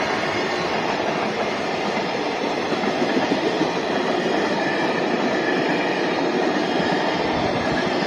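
A JR Freight container train's wagons rolling past, their steel wheels running steadily on the rails.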